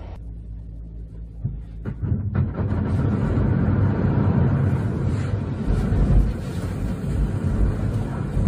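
A vehicle engine hums low and steady for about two seconds. Then comes a low, rumbling rush as a thick slab of snow slides off a roof, loudest in the second half.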